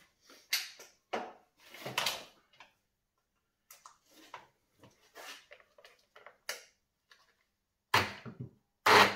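Clicks and knocks of handling a partly dismantled electric chainsaw, then near the end two short, loud bursts as its motor is switched on by pressing the brake microswitch directly. The saw barely runs because the chain brake is still engaged.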